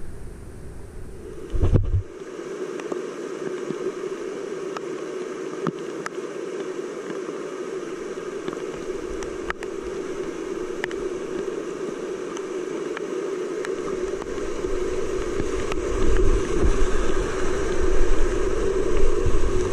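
Whitewater rapids rushing around a kayak, heard up close, with scattered small ticks of splashing water. A brief low thump comes about two seconds in, and a heavy low rumble of water and wind buffeting the microphone builds near the end.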